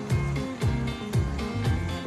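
Background music with a steady beat, about two drum strokes a second over a bass line.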